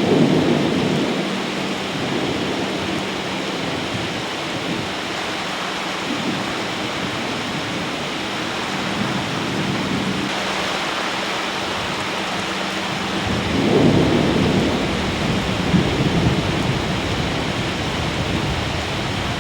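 Steady heavy rain with rolling thunder: a rumble right at the start and a longer, louder one about fourteen seconds in.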